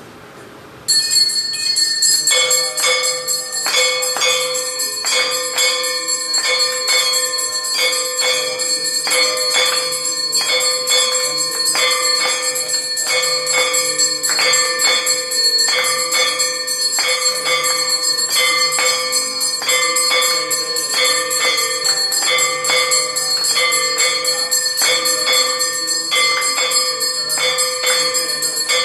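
Temple bells ringing for aarti: a loud, steady jangle of small bells with a larger bell or gong struck over and over, starting suddenly about a second in.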